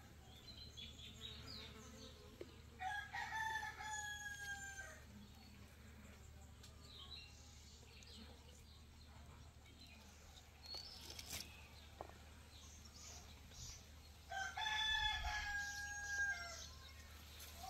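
A rooster crowing twice, each crow about two seconds long and about eleven seconds apart, with small birds chirping faintly in between.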